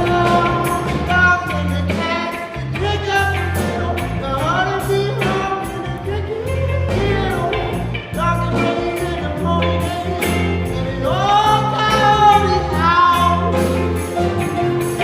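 A song with singing voices over a steady beat and bass line.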